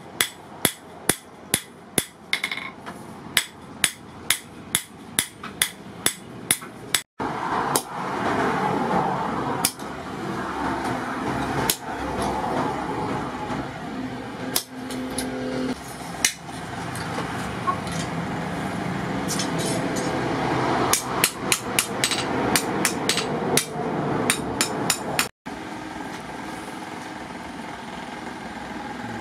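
Hand hammer striking a steel sword blade, cut from a motorcycle brake rotor disc, on a small iron anvil. There are sharp, even blows about twice a second for several seconds, then scattered blows over a steady background noise.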